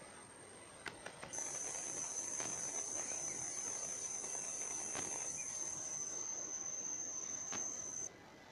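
An insect, cricket-like, giving one steady high-pitched trill that starts suddenly about a second in and cuts off near the end, with a few faint clicks around it.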